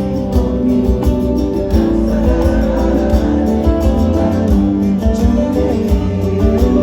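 Live band music: an instrumental passage between sung lines, with sustained chords over a steady low beat and no singing.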